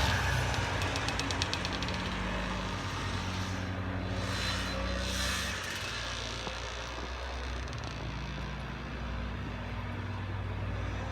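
Single-cylinder two-stroke Sachs 297 engine of a 1969 Arctic Cat Panther snowmobile running steadily, fading over the first couple of seconds and growing a little louder near the end.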